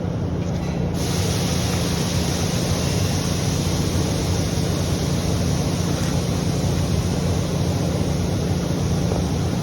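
Steady low hum with a constant rushing noise over it, the rush growing brighter about a second in.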